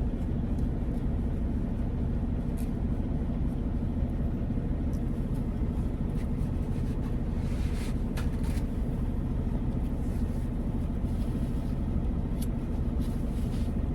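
A truck's diesel engine idling steadily, a low rumble heard inside the cab, with a few light clicks and knocks of cooking utensils.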